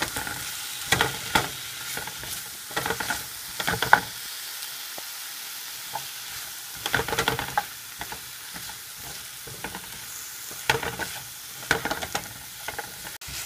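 Wooden spatula stirring sliced zucchini in a nonstick frying pan: irregular clusters of scrapes and clacks against the pan over the steady sizzle of the vegetables frying.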